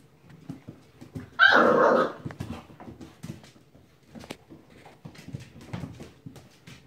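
Playing puppies: one gives a single loud bark about a second and a half in, lasting about half a second, amid soft scuffling and the tick of paws on the pen floor.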